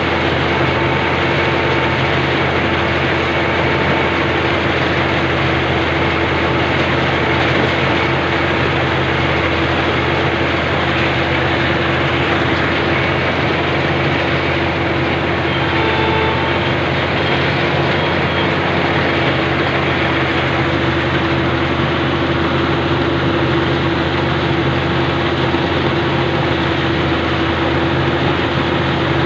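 Rice combine harvester running steadily: a constant engine hum with a steady mid-pitched whine over the machinery noise.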